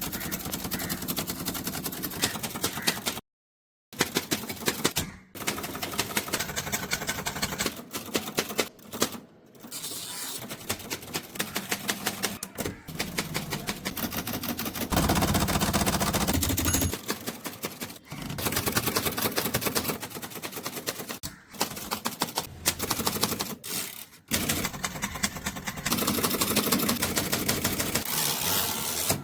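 Typewriter keys striking in fast runs of sharp clicks, broken by short pauses and sudden cuts.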